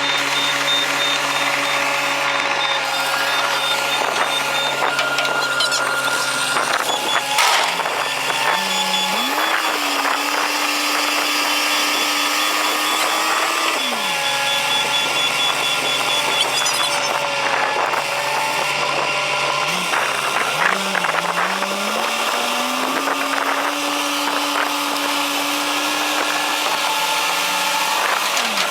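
Heavy earthmoving machine's diesel engine running and revving up under load twice: about eight seconds in it climbs and holds high for several seconds before dropping back, and around twenty seconds in it climbs again and stays high until near the end.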